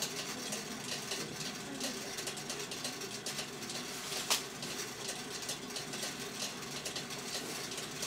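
Korean rice-popping machine (ppongtwigi) running, its motor-driven drum spinning with a steady clatter of small ticks. One sharper click comes a little past the middle.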